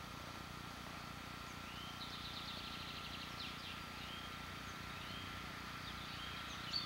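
Faint songbird calls: a short rising chirp repeated about once a second, with a brief rapid trill early on, over a faint steady high-pitched whine.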